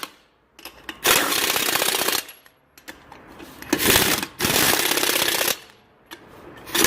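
Pneumatic impact wrench hammering wheel lug nuts tight in bursts: two long rattling runs of about one and two seconds with pauses between, and a third starting at the very end.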